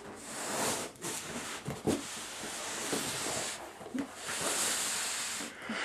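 Cardboard box being handled and slid about: spells of scraping, rustling cardboard noise with a few light knocks.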